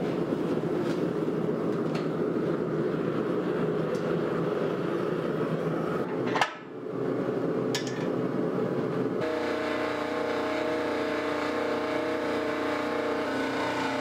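A steady low rushing roar with a few faint clicks and one sharp metallic knock about six seconds in. About nine seconds in it changes abruptly to the steady electric hum of a hydraulic forging press's motor and pump running, ready to press the hot steel.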